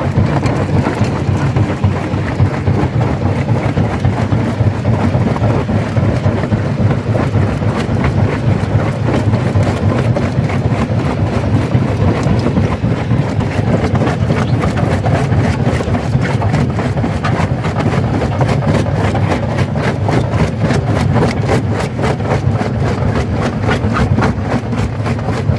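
Stone crusher running under load: a steady heavy machine drone with a constant rapid clatter of rock cracking and knocking in the crusher, the knocks coming thicker toward the end.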